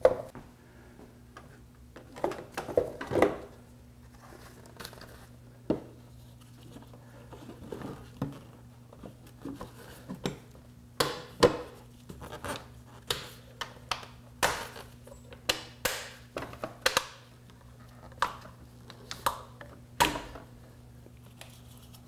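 Hard plastic parts of a Honda Civic's air intake and air filter box being handled and pressed into place: a string of irregular clicks and knocks.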